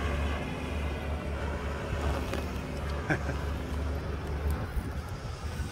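Engines of a Toyota Hilux and a Toyota Land Cruiser Prado running steadily under load as the Hilux tows the Prado through soft sand on a recovery strap. A single sharp knock comes about three seconds in, and the low engine drone eases off near the end.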